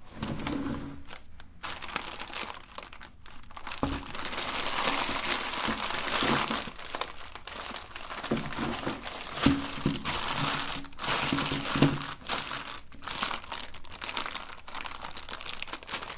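Continuous crinkling and crackling, like plastic wrappers being handled and crumpled, with sharp crunches and brief low hums breaking in now and then.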